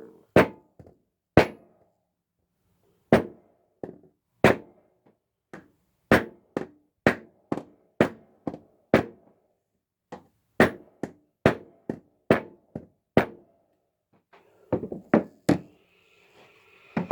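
Repeated sharp knocks, about two dozen strikes in irregular runs with short pauses between, as the last fret is being driven into a guitar fretboard.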